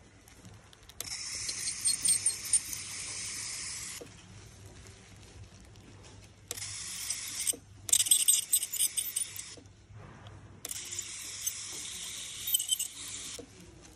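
Ultrasonic dental scaler working over a dog's teeth: four bursts of high hiss with sharp crackling, stopping briefly in between as the tip is lifted and repositioned.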